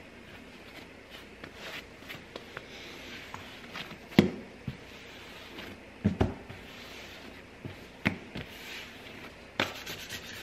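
Hands shaping a ball of sourdough dough on a floured countertop: soft scraping and rubbing of dough and palms on the counter, with a few sharp knocks about four, six, eight and nine and a half seconds in, the loudest around four and six seconds.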